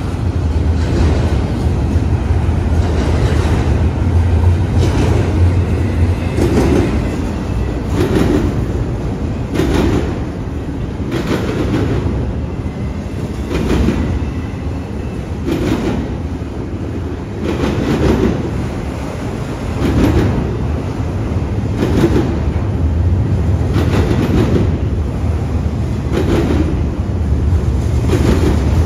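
Norfolk Southern freight train rolling past, its wheels clicking over rail joints about once a second over a steady low rumble. The rumble is heavier at the start and again near the end.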